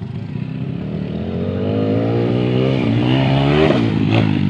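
Dirt bike engine accelerating, its pitch climbing steadily, then dipping briefly near the end and climbing again. A short sharp click sounds just after the dip.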